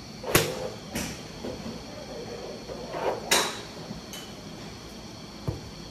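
A 5-iron striking a golf ball off a driving-range mat: one sharp crack about a third of a second in. Another sharp crack comes about three seconds later, over a faint steady high-pitched tone.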